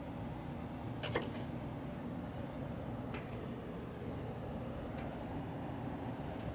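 Steady low mechanical hum and noise, with a few light clicks about one, three and five seconds in.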